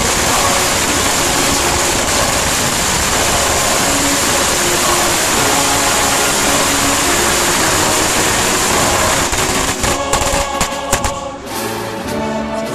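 A long coiled string of firecrackers going off in a rapid, continuous crackle of bangs that thins out and stops about eleven seconds in.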